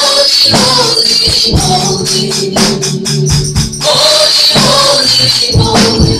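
Live gospel praise singing by a small group of women on microphones, amplified through a PA speaker, over backing instruments with a steady percussion beat.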